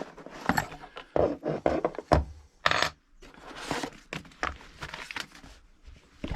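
A multi-tool's retail box being opened and handled by hand: irregular scraping, knocks and short rustles of the packaging, with a brief pause about halfway through.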